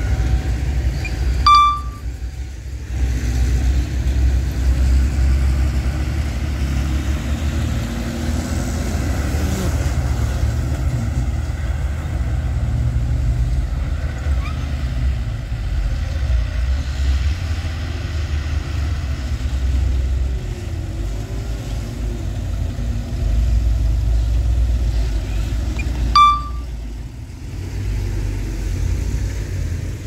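Diesel engines of small crawler bulldozers and a dump truck working, a steady low rumble that rises and falls. A brief high blip cuts in about a second and a half in and again near the end, each followed by a short dip in the rumble.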